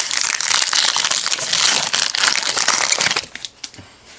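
A trading-card pack wrapper being torn open and crinkled, a loud dense crackle that stops about three seconds in. A few light clicks of cards follow.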